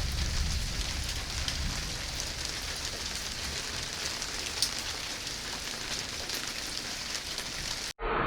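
Steady rain falling, with scattered drop ticks. It cuts off abruptly near the end, and a louder, duller sound starts.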